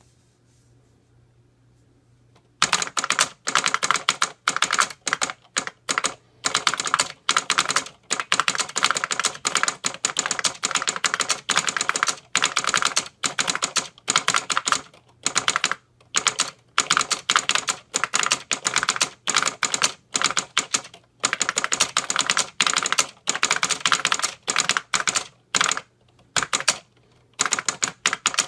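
Fast typing on a 1978 Harris Digitran keyboard with linear capacitive Z-leaf copper leaf switches, a solenoid clicking with the keystrokes. The clatter starts about two and a half seconds in and runs on in quick bursts with short pauses.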